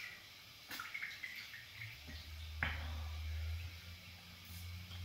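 Faint drips and small splashes of bath water as a person shifts in a filled bathtub. A low steady hum comes in about two seconds in.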